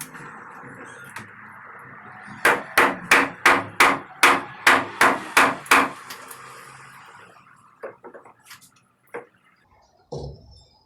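Hammer blows on wooden concrete form boards, knocking them loose from the cured slab: a fast run of about a dozen strikes, about three a second, then a few single knocks near the end.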